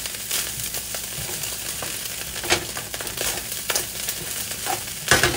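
Fried rice with crab sizzling in a hot wok while a wooden spatula stirs and scrapes through it, making a steady sizzle broken by short scrapes. A louder clack comes just before the end.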